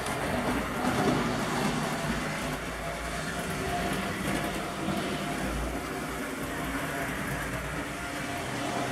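Model train running on the layout's track: a steady mechanical running noise with a faint hum.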